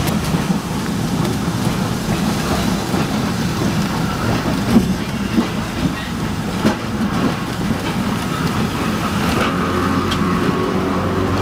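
Historic streetcar running along the line, heard from inside the car: steady rumble of the wheels on the rails with a few sharp clacks over rail joints in the middle. A steady hum comes in near the end.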